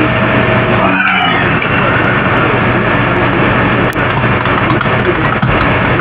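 Heavily amplified room recording from a computer microphone: a steady loud hiss and hum with faint warbling tones about a second in and a sharp click about four seconds in. The uploader takes it for microwave over-the-air communication.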